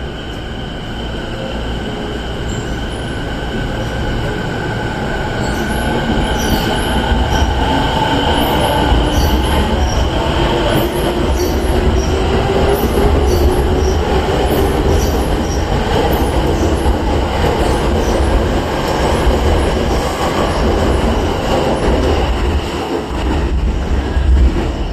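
Tokyo Waterfront Area Rapid Transit 70-000 series electric train pulling away from a station platform. Its traction motor whine rises in pitch as it accelerates, over a running rumble that grows louder, with regular high clicks from the wheels.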